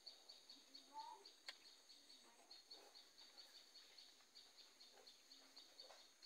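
Faint rural outdoor ambience: a high chirp repeating steadily about five times a second, with a short bird call about a second in.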